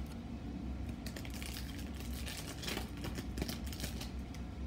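Foil booster pack wrapper crinkling and trading cards being handled, a run of small clicks and rustles, over a steady low hum.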